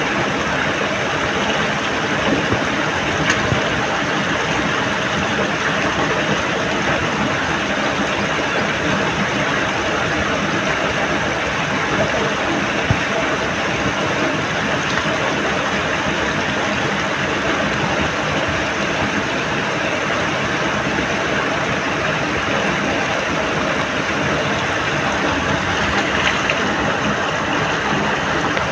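Water rushing steadily through a cut in a mud bank into a flooded channel, a constant loud flow with a few small splashes and knocks.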